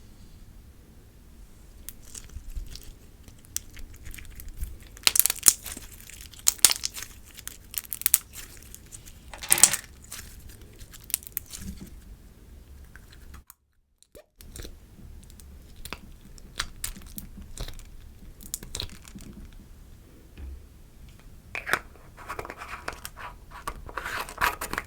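Gloss slime being squeezed, stretched and folded by hand, giving irregular wet clicks and pops with a few louder bursts of crackling. The sound drops out for about a second midway.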